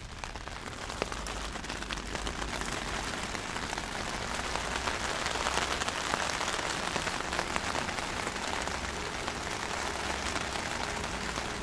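Rain falling on the fabric of a tent, heard from inside; it grows louder over the first few seconds and then holds steady.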